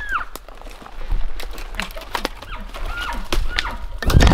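Footsteps moving through forest undergrowth, with twigs and brush crackling and snapping underfoot. A loud brushing rustle comes near the end, and a few short high chirps sound now and then.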